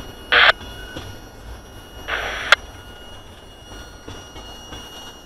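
Freight train's tank cars rolling slowly past with a low rumble. Two short bursts of radio static, one about half a second in and a softer one about two seconds in, and a sharp click at two and a half seconds.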